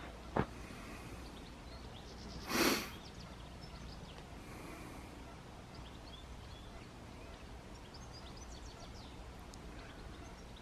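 Quiet outdoor ambience with a steady low background and faint scattered bird chirps. A sharp click comes less than half a second in, and a short, louder breathy rush, like a sniff or exhale near the microphone, comes about two and a half seconds in.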